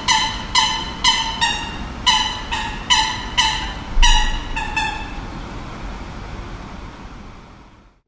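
A bell-like ding on one pitch, struck over and over about two to three times a second, each stroke ringing briefly. The dinging stops about five seconds in, over a low rumble that fades away by the end.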